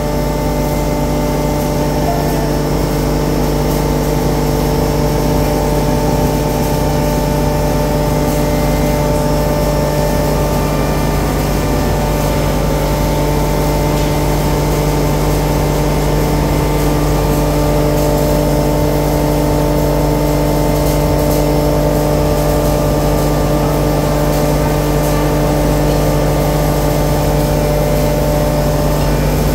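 Stainless steel pulverizer (hammer mill with a built-in blower fan) running at full speed: a loud, steady hum with several held tones over a rumble and a rush of air. It does not vary as powder is blown through to the collecting bag.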